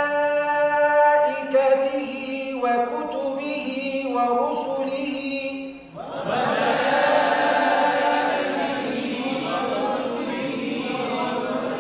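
Quran recitation drill: one man's voice chants a phrase in tajweed style with long held vowels, then about six seconds in a group of voices repeats it together in unison.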